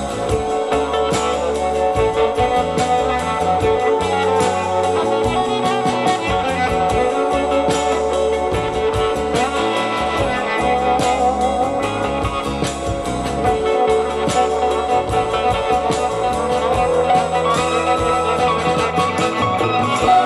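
Guitar-led music played back through a pair of Pioneer CS-501 three-way loudspeakers and picked up by a recorder's microphones in the room, as a listening test of the speakers.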